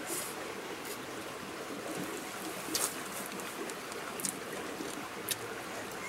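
A steady wash of running water, with a few short, sharp eating noises on top as noodles are eaten with chopsticks from a plastic plate.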